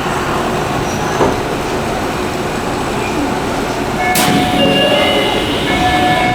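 Inside a Tokyu commuter train car: steady car noise, then about four seconds in a sharp hiss of air from the door mechanism, followed by the electronic door chime, a few steady tones of different pitch sounding one after another.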